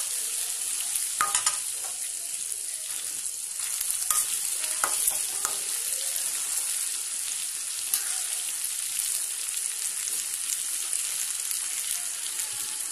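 Marinated chicken pieces sizzling steadily as they fry in shallow oil in a metal pan. A spatula stirs them and clicks against the pan a few times, mostly in the first five seconds.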